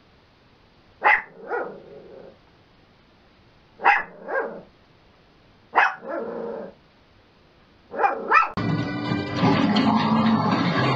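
Small dog barking in quick double barks: four pairs of barks a couple of seconds apart. Near the end a louder, continuous dense sound takes over.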